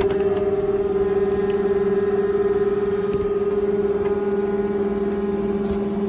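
The M210 trolley line car's table-lift motor running with a steady, even hum as it raises the work table to lift the trolley wire to height.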